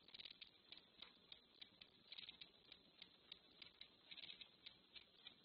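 Near silence: faint room tone with soft, irregular clicks that come in small clusters.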